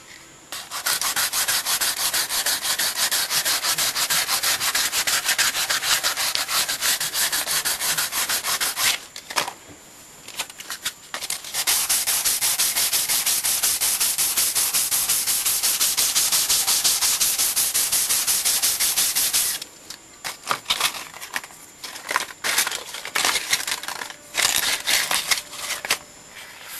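Sandpaper rubbing over the flat face of a wooden board: two long spells of steady sanding with a short pause between, then shorter, broken strokes near the end.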